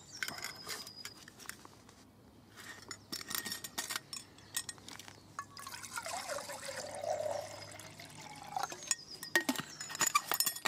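Water poured from a small metal bottle into a Jetboil stove's cup for about three seconds, starting about halfway through. Before and after the pour come light metal clicks and clinks of handling.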